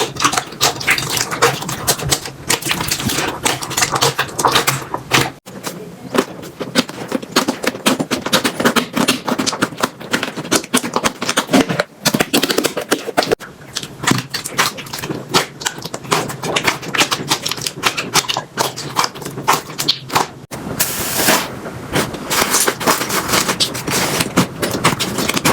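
Slime being squeezed and played with, making dense, fast clicking and crackling, with a few abrupt changes where one clip cuts to the next.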